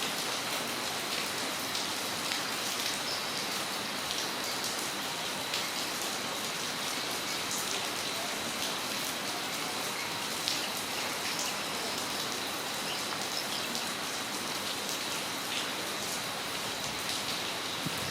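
Steady rain falling on a yard: an even hiss with many individual drops ticking close by, and a faint steady high tone running under it.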